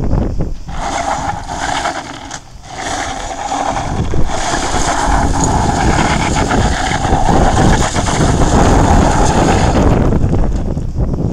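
Cyclone electric bike kit motors whining steadily under high power while the rear tyre spins on loose gravel, with wind rumbling on the microphone. The whine drops away briefly about two seconds in, then comes back and holds until near the end.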